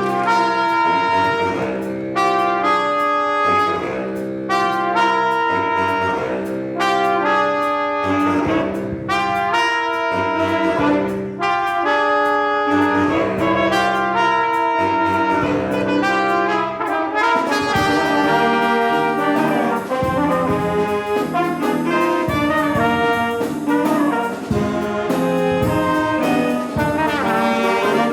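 A high school jazz band playing a lively tune, led by trumpets, trombones and saxophones, with the brass and reed sections trading short, punchy figures. About 17 seconds in, the arrangement shifts and the drums come forward.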